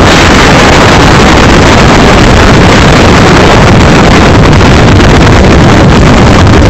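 Loud, steady rushing noise that fills the whole sound, with no words or tones standing out of it.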